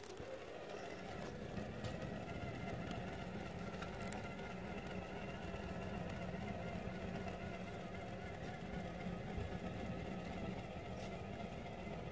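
Traxxas TRX-4 RC crawler's electric motor and geared drivetrain whining steadily as the truck crawls slowly through a culvert pipe, the pitch wavering a little with the throttle.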